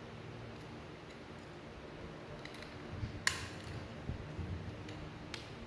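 Small metal parts of a brush cutter gearhead being handled: faint light ticks, one sharp metallic click about three seconds in and a softer one near the end.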